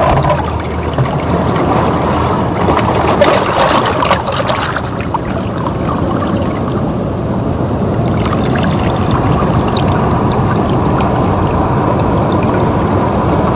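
Tide-pool water sloshing and trickling around a camera held under the surface, a steady watery noise with a few brief louder splashes about three to four seconds in.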